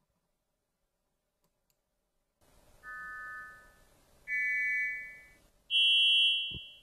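Loudness-balancing test chimes generated by a Blamey Saunders hearing aid: after about two seconds of near silence, three short multi-tone chimes sound in turn, each higher in pitch than the last and each fading away, the third the loudest. Each chime is the test sound for one frequency band, played so the bands can be set to an even, comfortable loudness.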